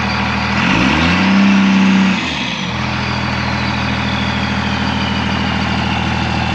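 1999 Dodge Ram's 5.9-litre Cummins inline-six turbodiesel idling, revved once briefly about a second in and dropping back to idle, with a faint high whistle winding down afterwards.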